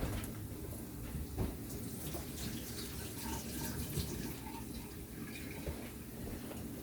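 Kitchen tap running steadily, water splashing into the sink as the peeled garlic is rinsed.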